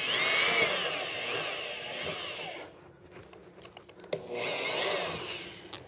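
Corded electric drill boring a 13/64-inch hole through the plastic air dam under a truck's front bumper, in two runs: the first stops about two and a half seconds in, and the second starts about four seconds in and lasts a second and a half.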